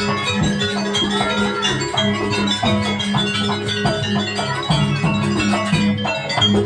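Live Banyuwangi jaranan buto ensemble music: a melody of repeated bending, arching phrases over a steady sustained low gong-like tone and continuous drumming.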